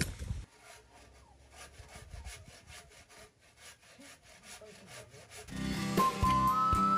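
Bahco hand saw cutting a wooden board, faint steady back-and-forth strokes. About five and a half seconds in, louder background music with a whistled-sounding melody comes in over it.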